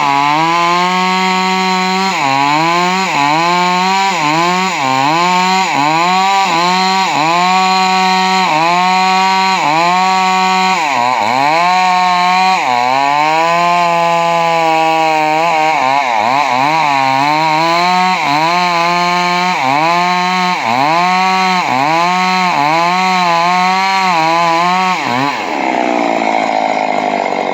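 Stihl two-stroke chainsaw running hard while cutting wood, its engine pitch dipping and climbing back about once a second. Near the end the pitch drops lower and wavers.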